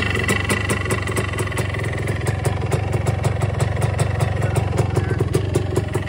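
1977 Yamaha IT250's two-stroke single-cylinder engine running steadily with a fast, even pulse. It has a freshly rebuilt top end, so it runs quiet with no piston slap.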